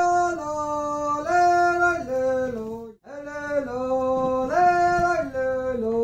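Sami joik (traditional Sami song) sung by a solo unaccompanied voice. It moves in held notes that step downward, in two phrases with a short break about halfway through.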